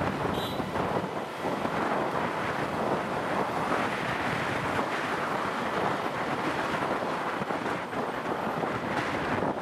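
Wind buffeting the microphone of a camera on a moving motorbike, mixed with road noise: a steady, uneven rush with no clear engine note.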